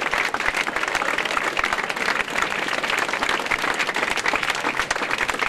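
Roadside spectators applauding runners: steady, dense clapping throughout.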